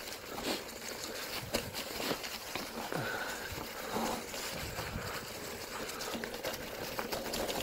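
Bicycle tyres rolling over a trail of dry fallen leaves: steady crunching rustle broken by irregular crackles and clicks.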